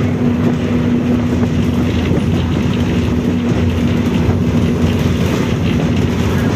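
Volkswagen 17-230 OD bus under way, with engine and road rumble and a steady droning tone over it from the rear differential, which is roaring loud.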